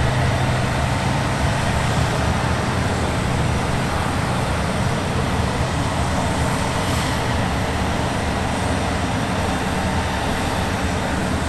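John Deere utility tractor's diesel engine running steadily under load as it tows a C-17 by a tow bar: a steady low hum with an even hiss over it.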